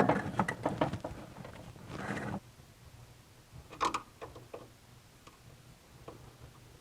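Hand tools and small metal parts handled: a sharp click, then a quick run of clicks and rattles in the first second, a short scrape about two seconds in, another small cluster of clicks near four seconds, and a few faint clicks after.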